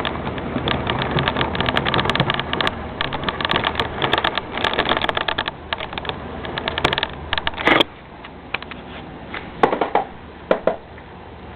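Lazy Susan bearing turntable rattling and clicking as it is turned, a dense run of clicks for most of the first eight seconds ending in a louder knock, then a few scattered clicks.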